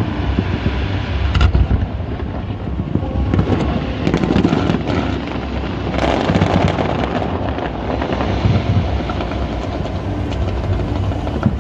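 Fireworks display going off: rapid bangs and crackling, densest about four to seven seconds in, over a steady low rumble.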